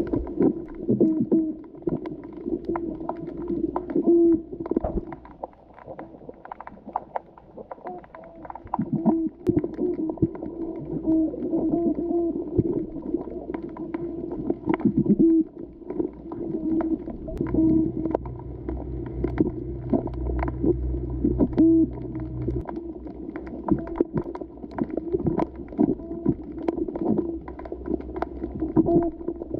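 Underwater sound heard through a GoPro's waterproof housing: a muffled, steady hum with irregular low pulses and frequent clicks and knocks. A low drone comes in for about five seconds a little past the middle.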